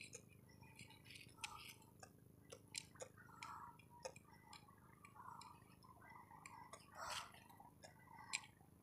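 Near silence, with faint scattered clicks and soft rustles, two of them slightly louder near the end.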